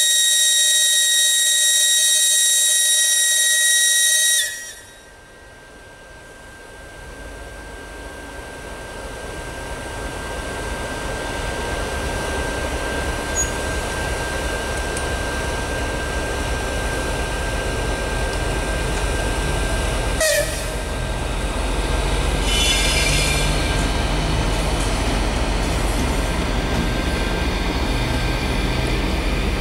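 A TEP70BS diesel locomotive sounds a loud, high-pitched horn for about four seconds, which cuts off sharply. Its 16-cylinder diesel engine's rumble then builds as it pulls a suburban train out and past, with a thin steady whine over it and a short sharp sound about twenty seconds in. Near the end the coaches roll by, their wheels clicking over the rails.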